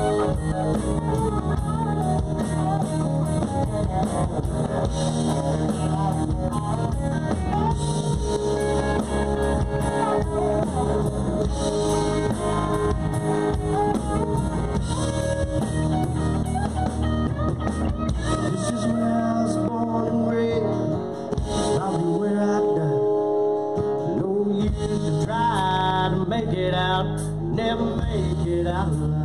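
Live band playing a song, with guitar and drum kit. The low end drops away for a few seconds about two-thirds of the way through, then the full band returns.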